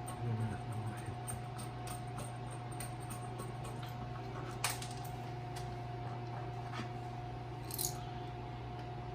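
A few sharp clicks and clinks of small hardware being handled, over a steady low hum.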